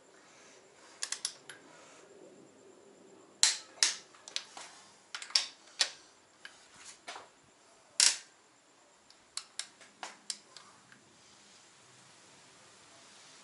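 About a dozen sharp clicks and snaps, irregularly spaced, the loudest about eight seconds in, as the ARP 2000 head stud nuts on an RB25DET cylinder head are pulled to 90 ft-lb with a long torque wrench. The builder puts the noise down to the stud winding in a tad and forcing air past the threads.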